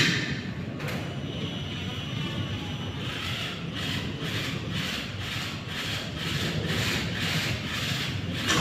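A sharp click, then from about three seconds in a hand tool rasping back and forth in steady strokes, about two or three a second.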